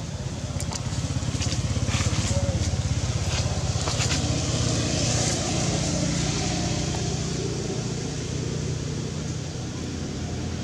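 An engine running steadily with a low, pulsing hum, with a few faint clicks in the first few seconds.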